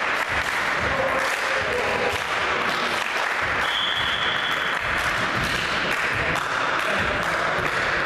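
Steady crowd noise of spectators clapping and cheering in a gymnasium during a volleyball match, with a brief high tone about halfway through.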